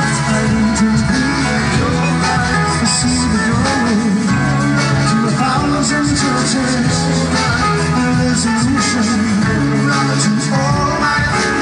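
Live rock band playing at full volume: electric guitars, bass, drums and keyboard, with a lead vocal singing over it.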